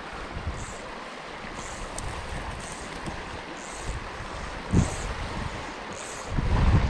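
Trout stream water running, with wind buffeting the microphone in low gusts about five seconds in and again near the end. A short high chirp repeats about once a second over it.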